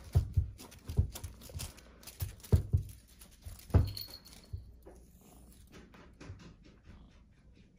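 Soft, irregular thumps and taps from a Persian kitten pouncing and batting at a feather wand toy on a padded fabric surface. The thumps are louder in the first half and give way to fainter, quicker taps.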